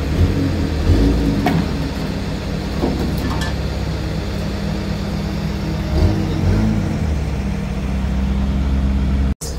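Car engine running steadily with a low, even hum, with a brief gap in the sound near the end.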